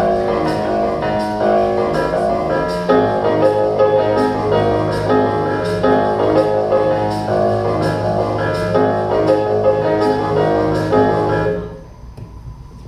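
Piano-led instrumental music with a steady rhythm, which stops abruptly near the end.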